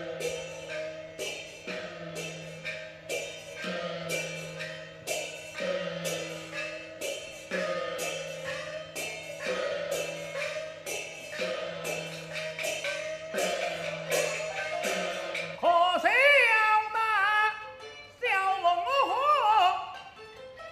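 Chinese opera music: sharp percussion strikes on a steady beat, about three every two seconds, over sustained instrumental notes. About 16 seconds in, a singer comes in loudly with a high, wavering aria line.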